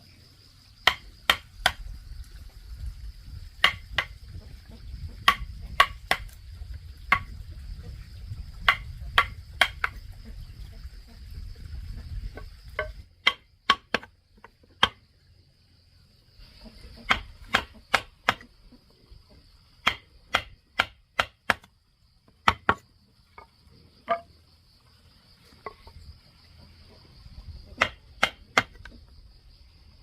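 Hammer blows in quick runs of two or three strikes, with crickets trilling steadily behind.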